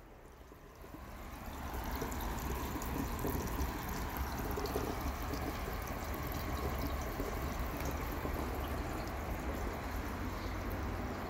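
Water in a saltwater aquarium running and trickling steadily over a low hum. The water sound swells up over the first two seconds, then holds even.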